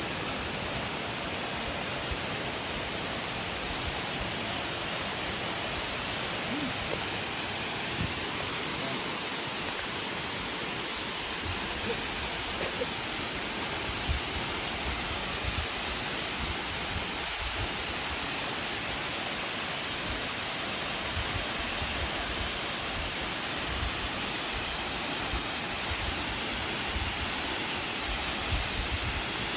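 Waterfall: a steady rush of falling water, with an uneven low rumble underneath.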